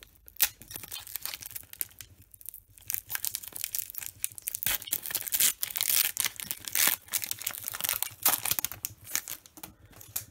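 Foil wrapper of a Pokémon TCG Dragon Majesty booster pack being torn open and crinkled by hand: an irregular run of rips and crackles, loudest around the middle.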